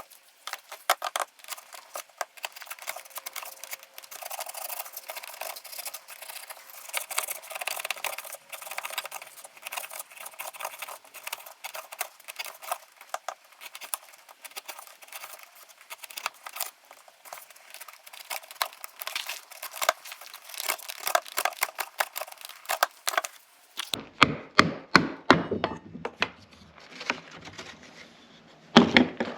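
A hand tool working wood in quick, uneven, scratchy strokes while a wooden comb is shaped. Near the end the sound turns fuller, with a run of louder, more separate strokes.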